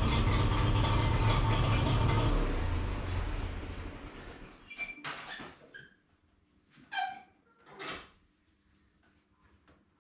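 Massey Ferguson 35 tractor engine running at idle, then switched off and dying away about three to five seconds in. A few sharp knocks follow as the driver climbs down.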